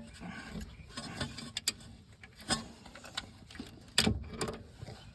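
Irregular metallic clicks and clinks of a hub bolt and tools being handled while the bolt is started on a rear wheel hub assembly, with a sharper knock about four seconds in.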